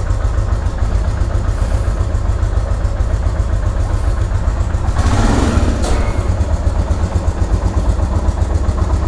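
Royal Enfield Himalayan's 411 cc single-cylinder engine idling steadily shortly after a cold start. A brief burst of rustling noise about five seconds in.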